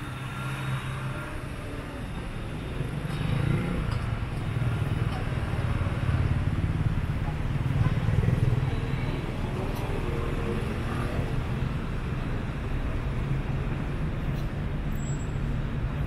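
Road traffic with car engines running close by: a steady low rumble that grows louder a few seconds in.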